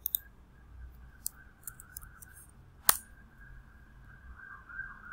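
Scattered computer mouse clicks and keyboard keystrokes, with one sharper, louder click about three seconds in, over a faint steady whine.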